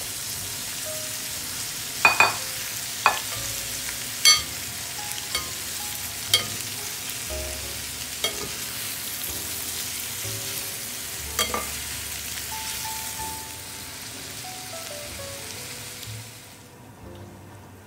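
Pork belly cubes and sliced onion sizzling as they fry in a pan, with a metal spoon clicking against the pan now and then as they are stirred. The sizzle fades near the end.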